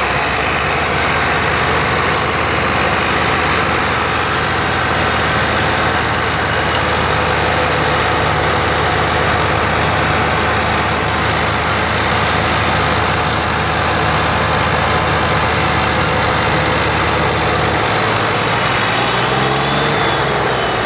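Massey Ferguson tractor diesel engines running hard under heavy load, pulling a sugarcane-laden trolley, with black exhaust smoke showing the strain. The loud, steady engine note changes about three seconds before the end.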